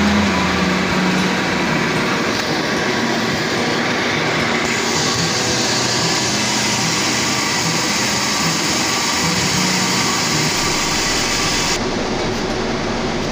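Circular vibrating sieve sorting processed tea, running with a loud, steady mechanical din.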